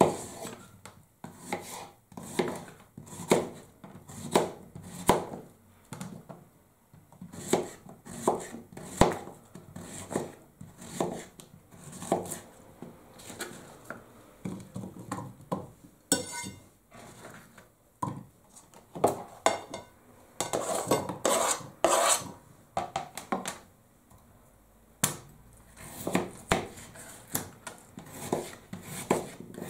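Kitchen knife cutting peeled vegetables on a plastic cutting board: irregular knocks of the blade hitting the board, with a short ringing clink about halfway through.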